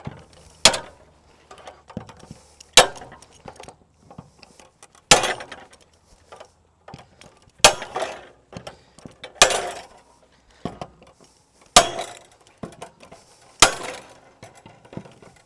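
Bolt cutters snipping through the steel wires of a welded-wire fence panel: seven sharp snaps, about one every two seconds, with small metallic clinks between the cuts.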